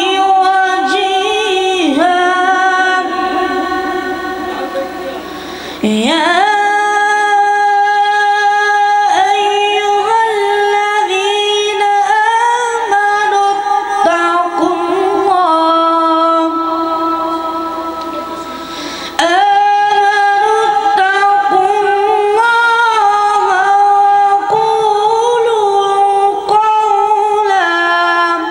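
A solo voice reciting the Quran in a slow, melodic chant, holding long ornamented notes. The voice breaks off for breath about 6 seconds in and again about 19 seconds in.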